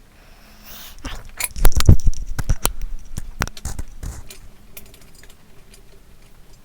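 Loose steel head bolts clinking and rattling against each other and the metal cylinder head as they are handled and set into their holes. A burst of jangling clinks starts about a second in, is loudest around two seconds, and dies away by about four and a half seconds.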